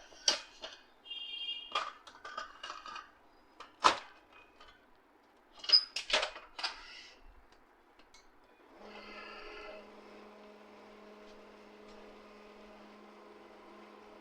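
A series of sharp plastic clicks and knocks as the HP LaserJet M1005 MFP is handled, then, about nine seconds in, the printer's motor starts up and runs with a steady hum.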